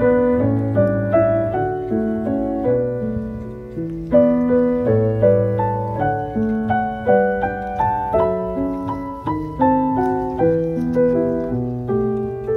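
Background piano music: a slow melody of struck notes, each one fading away.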